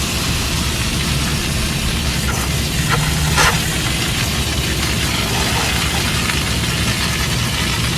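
Water spraying steadily from a hose nozzle onto the fins of an air-conditioning condenser coil, rinsing it from the inside, over a steady low hum.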